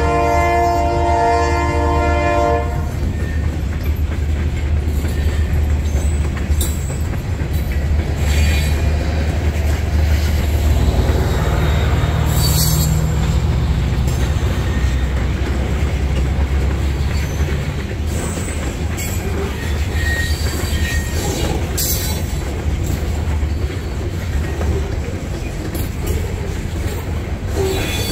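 Freight train horn sounding a held chord that cuts off about two and a half seconds in, then a long string of freight cars rolling past with a steady low rumble, occasional wheel clanks and brief squeals.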